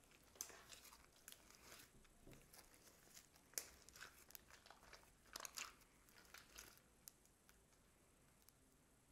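Faint sticky clicks and crackles of glossy slime being kneaded and stretched by hand in a glass bowl, with a few louder pops about a third and about halfway through, quieter over the last two seconds.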